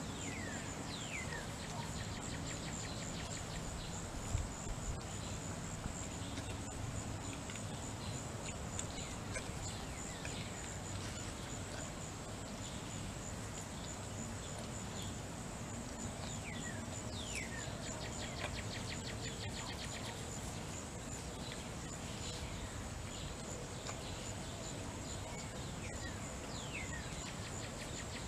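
Steady high insect trilling in the background, with a few short downward-sliding bird chirps now and then and a brief knock about four seconds in.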